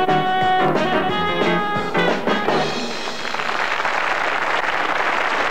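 Circus band music with brass and drums, which ends a little before halfway through; then an audience applauding.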